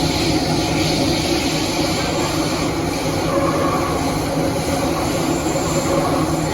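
Kawasaki & CRRC Sifang CT251 metro train running at speed, heard from inside the passenger car: a steady rumble and rush of running noise with a low, even hum.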